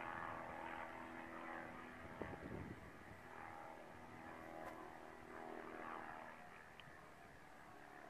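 Distant drone of a Kitfox light plane's engine and propeller passing overhead, a steady hum that slowly fades, with a couple of low wind thumps on the microphone early on.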